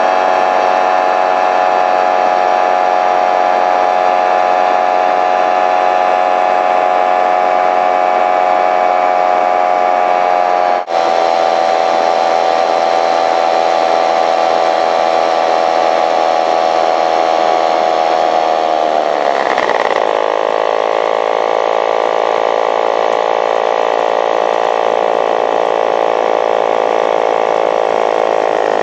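Powered paraglider trike's engine and propeller running steadily in flight, with a momentary break about a third of the way in. About two-thirds of the way through, the pitch falls as the engine is throttled back, and it runs on at the lower note.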